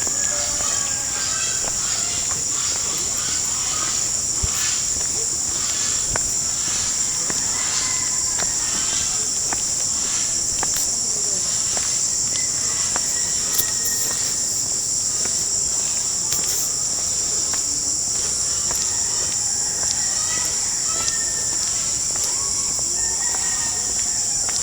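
Steady, high-pitched chorus of insects such as crickets, droning without a break.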